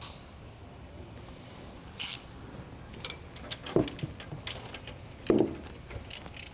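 Hand ratchet with an extension turning a nylock nut onto the A/C compressor's lower mounting bolt, clicking in short strokes near the end, after scattered metallic clicks and knocks from handling the tool and hardware.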